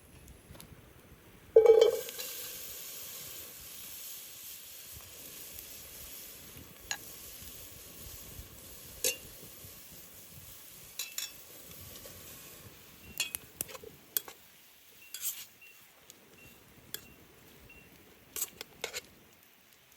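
A loud metal clank about two seconds in, then food sizzling in a hot pan for about ten seconds, slowly dying down, with scattered clinks of a utensil against the pan.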